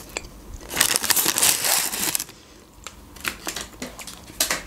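Paper food packaging crinkling and rustling for about a second and a half as onion rings are taken out, followed by a few light taps and clicks.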